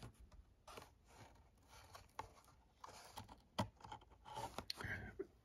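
Faint clicks and crinkles of a Hot Wheels blister pack, its plastic bubble and cardboard card, handled and tilted in the hands, with one sharper click about three and a half seconds in.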